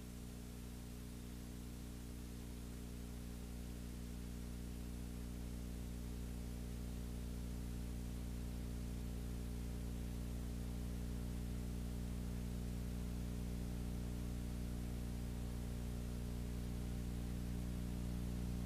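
Steady low electrical hum with a stack of overtones over an even hiss, growing slightly louder.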